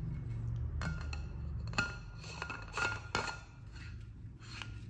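Stainless-steel insulated bottle and its lid clinking together as the lid is fitted and screwed onto the steel mouth: several light metal clinks, some with a brief ring, then quieter turning sounds.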